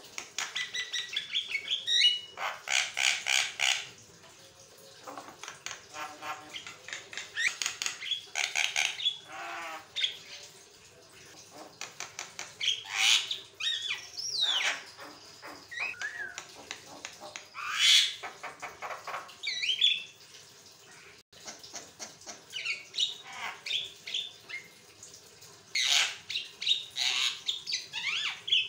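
Javan myna (jalak kebo) singing nearly without pause: bursts of fast, rapidly repeated harsh chattering notes mixed with squawks and sliding whistles that rise and fall, in phrases a few seconds long with short gaps between.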